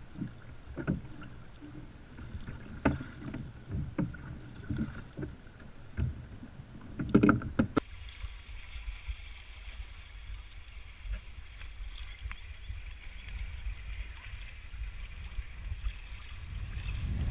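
A fishing kayak on open water, with irregular knocks and water slaps against the hull. About eight seconds in the sound changes suddenly to a steady low rumble of wind on the microphone over faint lapping water.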